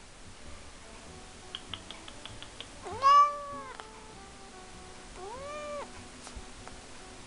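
Persian cat meowing twice: a loud, drawn-out meow about three seconds in, then a quieter one about two seconds later.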